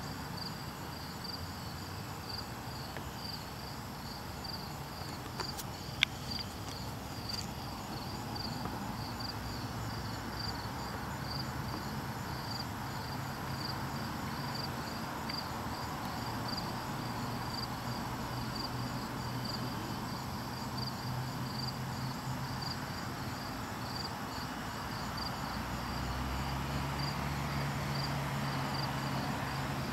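An insect chirping in a high, even, steady rhythm over a low outdoor rumble, with one sharp click about six seconds in; the low rumble grows a little louder near the end.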